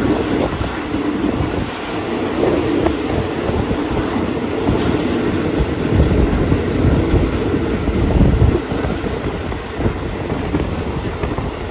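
Moving train heard from on board at a window: a steady rumble of wheels on rails with wind on the microphone, growing heavier for a couple of seconds past the middle.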